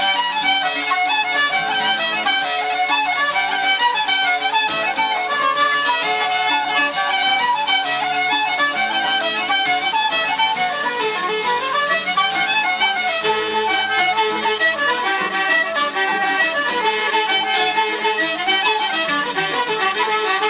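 Irish traditional band playing a set of jigs, with the fiddle carrying the melody in quick, even runs of notes.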